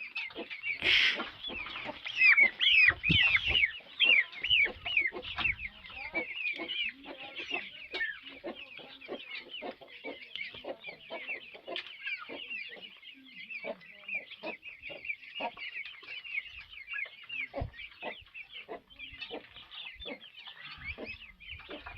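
A flock of young fowl chirping and clucking continuously, with many short high peeps overlapping. There is a sharp noise about a second in and a few low thumps over the next few seconds.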